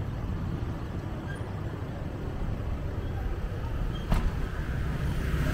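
City street traffic: a steady rumble of passing road vehicles, with one sharp click about four seconds in.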